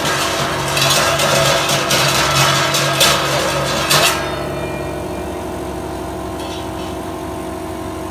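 Gas blowtorch flame hissing as it heats a coil of silver wire, then cutting off about four seconds in; a steady low hum carries on underneath.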